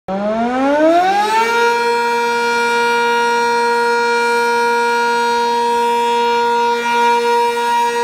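Sentry 10V outdoor warning siren winding up from silence, its pitch rising for about a second and a half, then holding a loud steady tone: the Alert signal during a siren test. The tone begins to waver slightly near the end.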